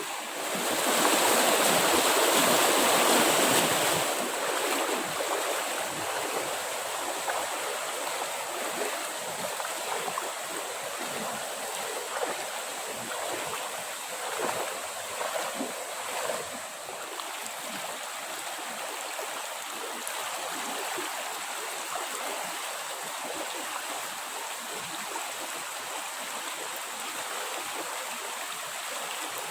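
Steady rushing of a forest stream, louder for the first few seconds and then even, with a thin steady high-pitched tone running through it.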